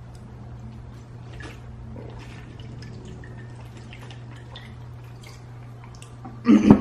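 Gulping and swallowing water from a sport-cap water bottle: faint mouth and swallow sounds over a steady low hum. Near the end comes a loud short thump as the bottle is set down.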